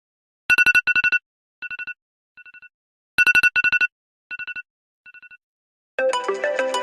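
iPhone alarm tone: rapid electronic beeps in clusters, two loud clusters followed by two fainter, echo-like ones, the pattern playing twice. About six seconds in, a different ringtone begins, a busier melodic sequence of many notes.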